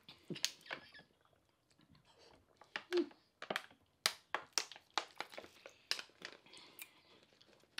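Close-up eating sounds: irregular wet clicks and smacks of chewing on stewed pig feet, coming in uneven bunches with short quiet gaps.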